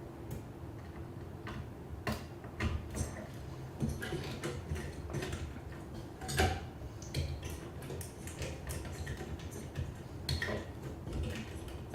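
Small irregular clicks and taps of hands working a CPU cooler's fan cable and plugging its connector into the motherboard's fan header, with one sharper knock about six and a half seconds in.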